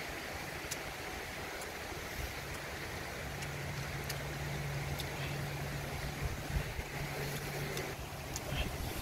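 Shallow stream running over stones, a steady rushing hiss. A low steady hum sits underneath, and there are a few faint clicks.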